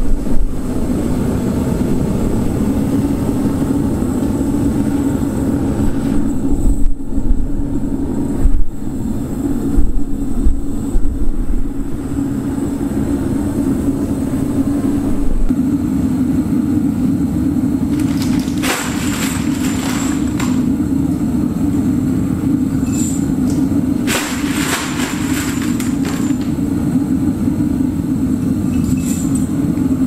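Propane burner of a ToAuto metal-melting furnace running steadily while preheating the furnace and crucible, a continuous low sound. Two brief bursts of higher noise come about two-thirds of the way through.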